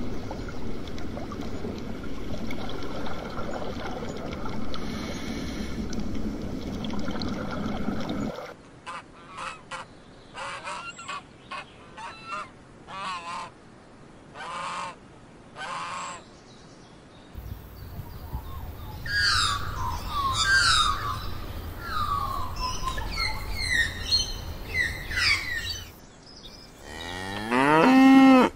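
A steady low rumbling noise for about the first eight seconds, then a long run of short Canada goose honks. Near the end, a cow moos loudly.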